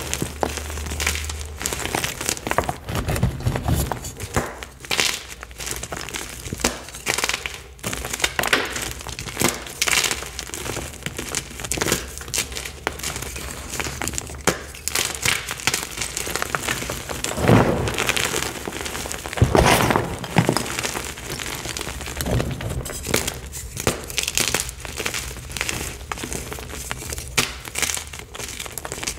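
Bare hands crushing and crumbling Picsil chalk blocks into powder: a dense, irregular run of crisp crunches and crackles, with a couple of louder crunches about two-thirds of the way through.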